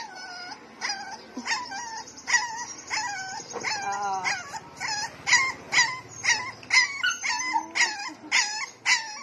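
A dog whining and yelping in short, high-pitched cries, about two a second, over and over.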